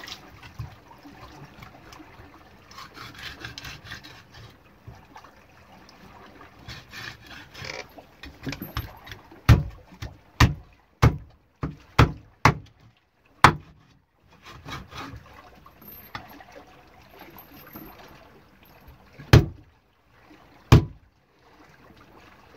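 A large knife chopping a gray eel-catfish on a wooden cutting board: after several seconds of scraping and rubbing as the wet fish is worked over, seven sharp chops come in about four seconds around the middle, then two more spaced out near the end.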